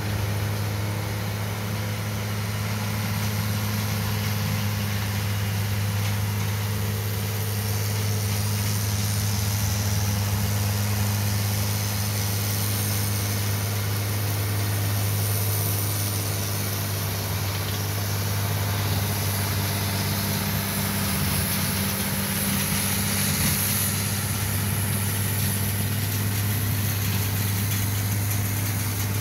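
Farmall 1066 tractor's diesel engine running at a steady speed while driving a rotary mower through grass, giving an even low drone.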